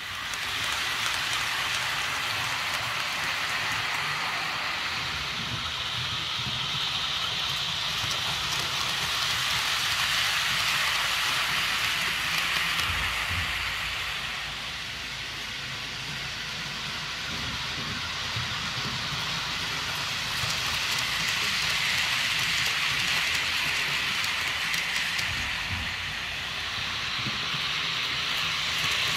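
H0-scale model freight train, hauled by an SU46 diesel locomotive model, running on the layout track: a steady rattling hiss of small wheels on rail with the locomotive's motor. It swells and fades as the wagons come nearer and move away, dipping about halfway through and again near the end.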